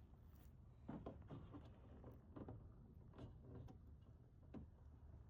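Faint rustling and a few light clicks of gloved hands working a plastic turn-signal bulb socket, trying to twist it into a tight headlight housing.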